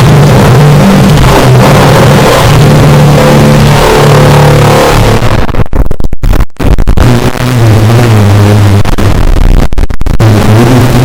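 Loud, heavily distorted noise-style music: low droning notes held under a harsh wall of noise, which cuts out in a few brief gaps about six seconds in.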